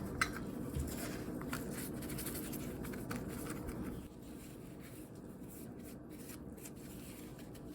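Soft scraping and handling sounds as a damp borax-based detergent mix is packed into small plastic containers, quieter after about four seconds.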